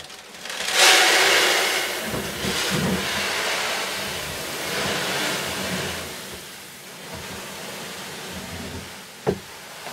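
Chicken starter-grower feed pouring in a steady rush from a large plastic pet food container into a plywood feeder hopper, loudest about a second in and slowly thinning as the container empties. A single sharp knock near the end.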